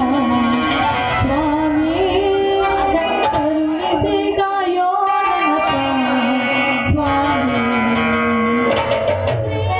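Live aarati (devotional) song, a singer holding long, wavering notes with instruments accompanying, heard through loudspeakers.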